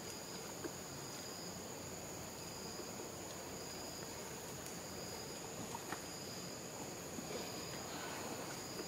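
Steady high-pitched insect drone of two thin, unchanging tones over a faint background hiss, with a few soft ticks.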